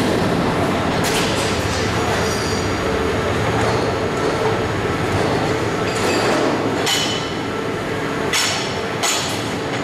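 Automatic air-duct production line running: steady machine hum and rumble of motors, conveyors and rollers, with a few sharp metal clanks from the sheet metal being handled.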